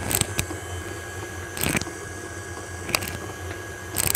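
Electric stand mixer running steadily, its beater working a thick cake batter in a glass bowl. A handful of short, sharp clicks and knocks sound over the steady hum.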